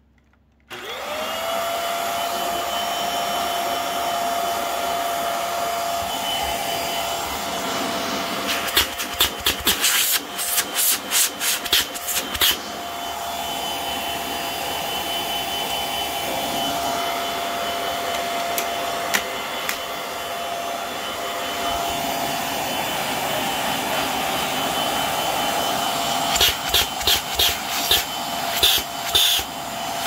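Hoover WindTunnel Air Steerable (UH72400) bagless upright vacuum cleaner switching on about a second in. Its motor whine rises quickly and settles into a steady running hum while it is used with the hose and extension wand. Two spells of rapid sharp clicks and rattles cut in, about a third of the way in and again near the end.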